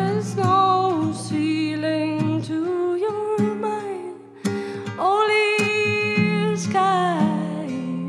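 A song performed live: a voice singing long held notes with vibrato, in two phrases with a short break about halfway, over a guitar accompaniment.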